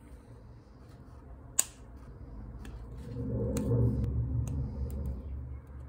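Small plastic kit parts being clipped off a plastic sprue with sprue cutters: one sharp snip, then a few lighter clicks over the rustle of the sprue frame being handled.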